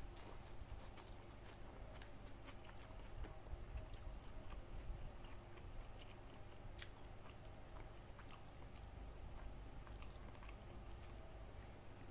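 A person chewing a mouthful of rice and fried food, with many small, irregular mouth clicks and lip smacks.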